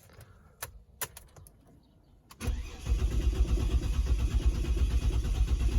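A few clicks, then, about two and a half seconds in, the starter motor of a 2006 Ford Territory cranks its engine steadily without it catching. It is a crank-no-start: the inertia fuel cut-off switch has tripped and cut the fuel supply.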